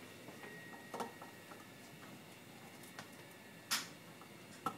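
Faint, scattered clicks and ticks of a screwdriver working the screws out of the metal head of a Shaw SADP dewpoint meter, four in all, the loudest a short metallic rattle about three-quarters of the way through.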